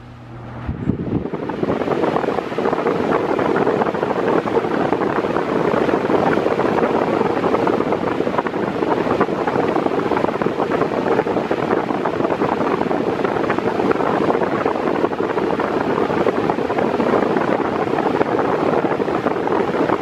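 Mondial Maxi Power Black 40 cm 140 W pedestal fan on its maximum speed. It grows louder about a second in as it comes up to speed, then gives a loud, steady rush of air with wind noise on the microphone.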